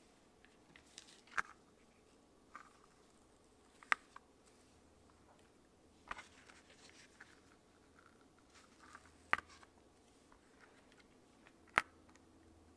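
A zipper with a metal pull being handled on a cutting mat: about five sharp clicks spaced a couple of seconds apart, with soft rustling between them.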